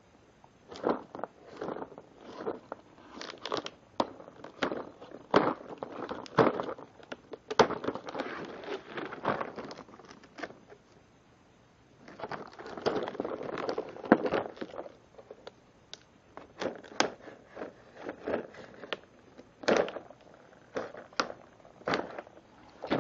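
Rigid clear plastic clamshell packaging crackling and snapping as it is cut open with a utility knife and bent apart, in irregular bursts of crinkles and clicks. There is a pause of about a second and a half near the middle.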